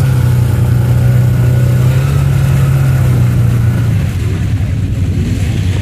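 Off-road vehicle engine running at steady revs, then easing off about four seconds in.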